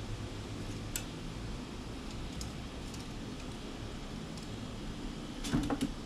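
A squirrel's claws and feet knocking on the wooden perch as it jumps off: a sharp click about a second in, a few faint ticks, then a quick cluster of three or four knocks near the end. A steady low background hum runs underneath.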